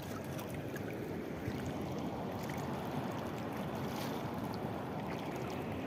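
Chambal river water flowing and lapping among the rocks at the bank, a steady low rush.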